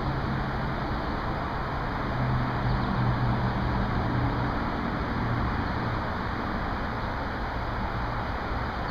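Steady hum of distant traffic: a low, even rumble under a soft hiss, with no distinct events.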